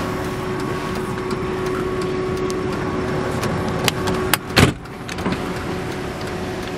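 2002 Audi A6 driver's door pulled shut by its inside handle: a sharp click and then a heavier thud a little over four seconds in. After the door closes, the steady outside hum becomes quieter.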